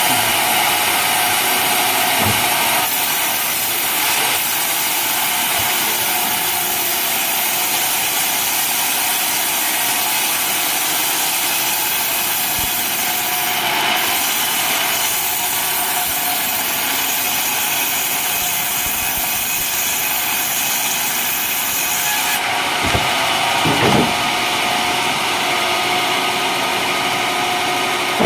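Homemade sawmill's blade cutting lengthwise through an old coconut-palm trunk, a steady, loud, high-pitched sawing noise, with the machine's motor running under it. A couple of brief knocks come near the end.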